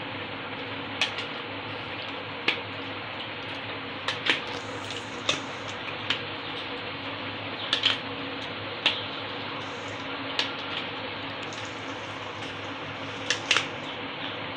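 A plastic spoon stirring chopped potatoes and phulkiyan through a thinned yogurt mixture in a steel bowl. It makes soft wet stirring with a dozen or so irregular clicks and scrapes where the spoon strikes the steel, over a steady background hum.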